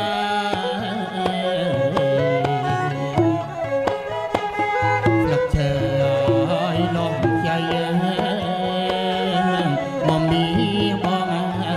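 Background music: traditional-style Asian instrumental music, with held melodic notes over frequent drum strikes, playing steadily.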